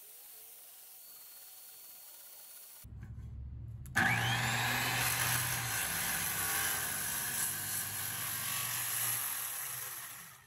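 Skilsaw circular saw starting up about four seconds in, the motor whining up to speed, then cutting steadily through a thick oak board before the sound dies away at the end.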